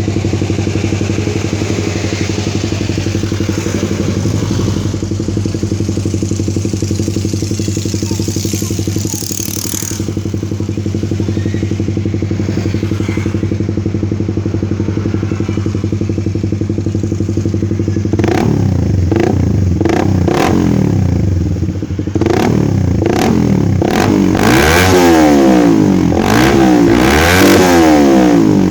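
Suzuki Raider 150 carburettor model's single-cylinder four-stroke engine running through an open HGM aftermarket exhaust pipe, idling steadily, then revved in a series of throttle blips from about two-thirds of the way in, the pitch rising and falling with each blip.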